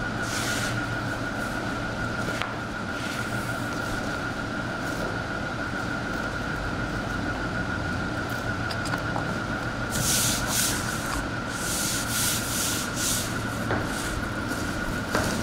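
Hands rubbing and pressing a striped EVA foam sheet down onto a paste-glued black sole sheet to bond them. A few brushing strokes come first, then a quick run of them from about ten seconds in, over a steady high-pitched hum.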